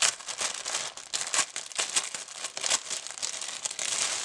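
Packaging being handled and crinkled by hand: a continuous, irregular rustling and crackling.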